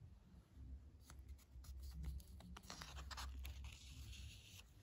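Soft rustle of the paper pages of a heavily worn 1953 comic book being handled and turned, with a few light clicks; the rustle is strongest in the second half.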